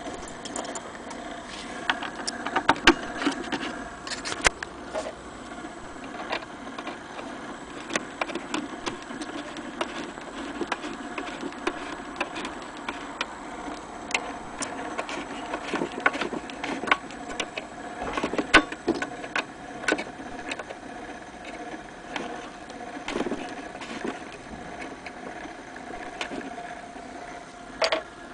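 Vintage gramophone's spring-wound motor running, a steady whir with scattered clicks and knocks.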